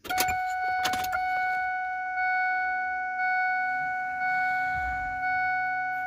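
A 1999 Ford 7.3L diesel truck's ignition key is turned on, with clicks about a second apart. Then a steady dash warning tone sounds, swelling about once a second, while a low hum joins underneath: the key being cycled so the electric fuel pump refills the drained fuel filter.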